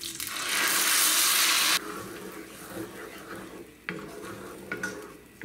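Blended tomato and chipotle sauce hitting hot butter and oil in a pan, sizzling loudly for about a second and a half before cutting off suddenly. Then a wooden spoon stirring the thick sauce in the pan, with a couple of knocks.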